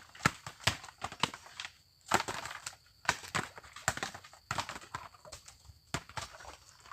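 A quick, uneven run of sharp knocks and taps, with short scraping stretches between them.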